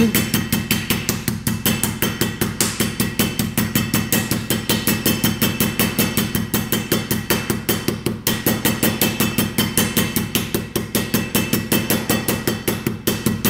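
Stainless-steel meat mallet pounding beef fillet through a plastic sheet against a stone countertop, in a fast, even run of about five blows a second, flattening the meat thin for carpaccio.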